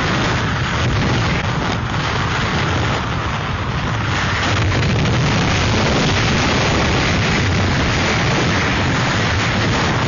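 Hurricane-force wind roaring steadily, with heavy low buffeting of the wind on the microphone.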